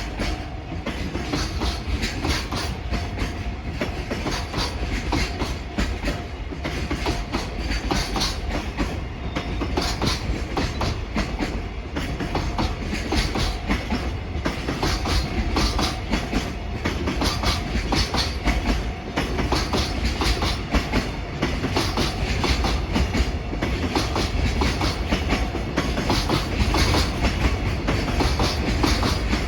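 Long container freight train rolling past, its wagon wheels clicking over the rail joints in a steady rhythm over a low rumble.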